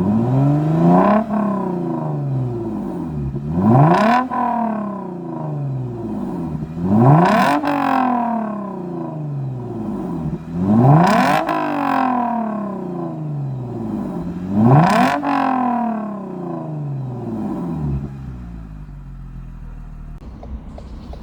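Lexus GS350 F Sport's 3.5-litre V6 blipped five times through its newly installed valved exhaust, each rev rising sharply and falling back slowly to idle. After the last rev it settles into a steady idle.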